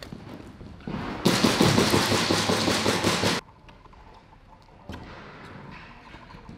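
Airsoft gunfire: a rapid full-auto burst from an HPA-powered airsoft replica starts about a second in, runs for about two seconds and cuts off abruptly.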